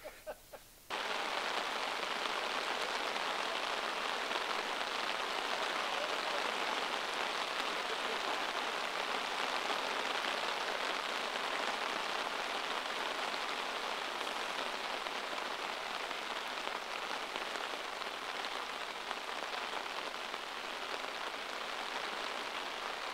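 Heavy rain falling steadily, starting suddenly about a second in.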